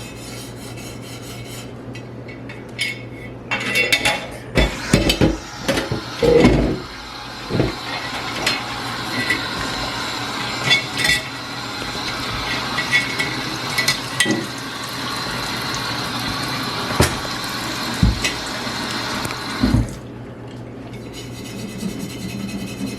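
Water spraying onto a cast-iron kettle to rinse off rust and paint loosened by electrolysis, with clanks of metal on metal a few seconds in. The water starts a few seconds in and stops near the end.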